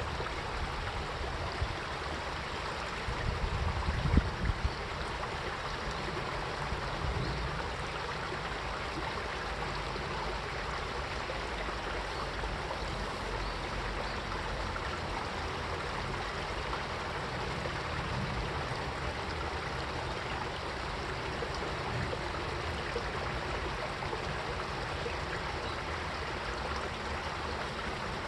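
Mountain stream flowing steadily, a constant rush and trickle of water. A few brief low rumbles about three to four seconds in.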